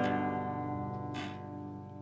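The final chord of a choro piece on guitar and other plucked strings, ringing out and fading away.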